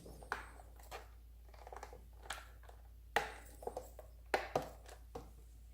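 Hard plastic clicking and scraping as a flat tool pries at the clipped plastic handle casing of a Bosch Athlet vacuum cleaner. Several sharp clicks, the loudest about three seconds in and a pair a little after four seconds.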